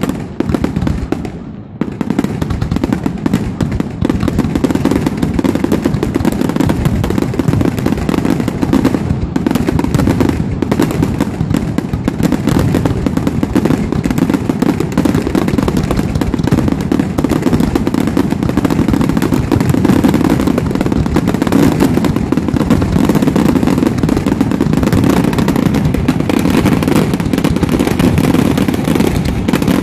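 Aerial fireworks going off in a dense, continuous barrage of rapid bangs and crackles, with a brief lull about one and a half seconds in.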